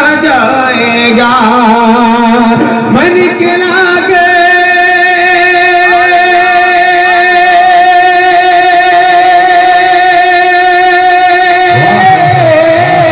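A man's voice singing a naat, an Urdu devotional poem, into a microphone. It opens with ornamented, bending phrases, then holds one long, slightly wavering note from about four seconds in until near the end.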